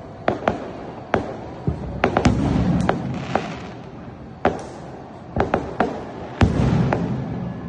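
Fireworks going off: a long irregular run of sharp bangs, some in quick clusters. The loudest bangs, about two seconds in and again past six seconds, are followed by long echoing rumbles.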